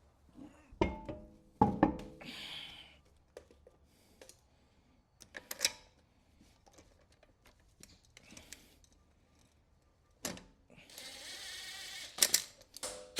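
Scattered metal clanks and knocks of tools on the car, with one ringing clank about a second in and a short hiss near the end.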